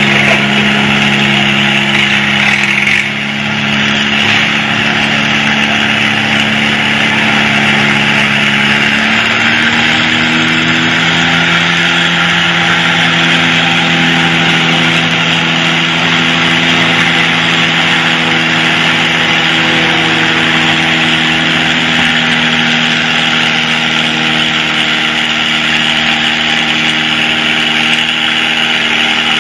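International Harvester Farmall tractor engine running steadily as it makes a pull down the track, its note stepping up slightly about nine seconds in.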